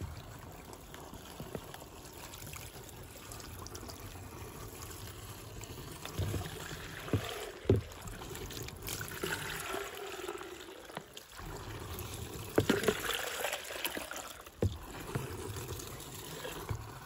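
Water poured from a plastic mug through a strainer funnel into the 600-litre plastic tank of a tractor-mounted field sprayer, splashing and trickling into the liquid inside, in repeated pours. A few sharp knocks stand out, one about eight seconds in and another near thirteen seconds.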